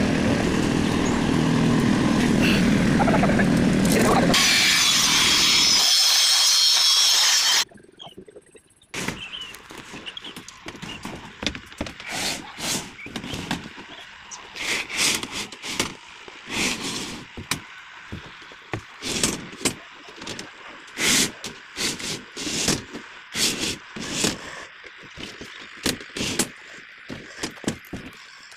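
A loud, steady mixed noise, turning to a higher hiss after about four seconds, cuts off suddenly about seven seconds in. After that comes an uneven string of sharp metal clicks and clinks from steel rebar being tied into a mesh with wire.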